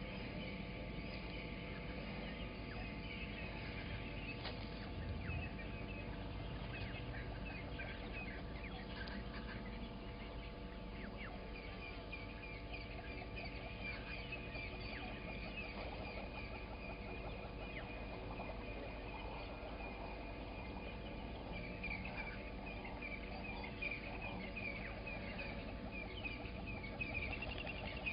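Wild birds calling in the early-morning chorus: many short, rapid chirps and trills overlapping, over a faint steady hum.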